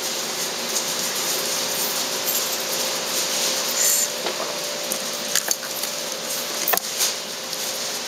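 Steady hiss with a faint steady hum, and a few light clicks and taps from a fishing rig's small parts being handled and set down on a board. The rig has metal swivels, a sinker and a plastic mesh feeder basket, and the clicks come in two pairs, the louder pair near the end.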